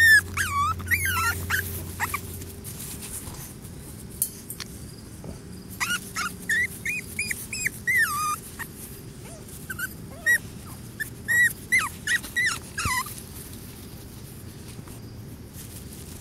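Boston Terrier puppy whining: repeated short, high-pitched whimpers in bursts, stopping about three-quarters of the way through.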